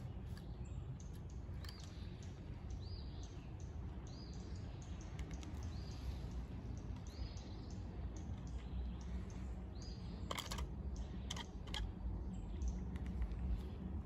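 Pileated woodpecker pecking and chipping into a wooden landscape timber to reach an ant nest: scattered sharp taps, with a cluster of harder strikes about ten seconds in. Over the first part another bird repeats a short, high, arched call every second or two, over a low steady rumble.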